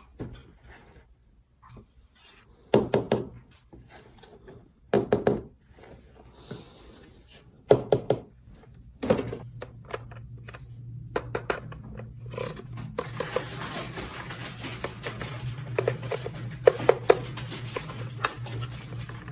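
Plastic toy pieces being handled, giving a series of knocks, clicks and rubs. A steady low hum comes in about halfway and runs on under further small clicks.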